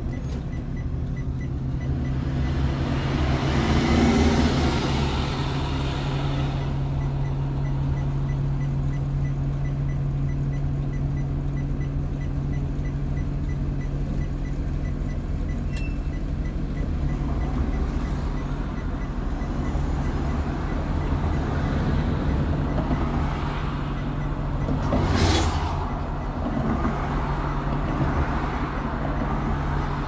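School bus engine idling steadily, heard from inside the bus, while other vehicles pass outside; one passes loudly a few seconds in, and there is a brief loud rush about three-quarters of the way through.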